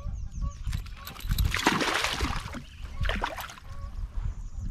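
A small hooked fish thrashing and splashing at the water's surface beside a kayak while being handled: a longer bout of splashing from about a second in, then a shorter one around three seconds. Wind rumbles on the microphone underneath.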